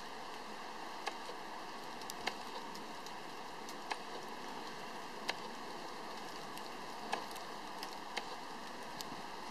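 Small hail falling on a flower box of soil: a steady hiss with sharp clicks of single hailstones striking, irregularly, about one a second.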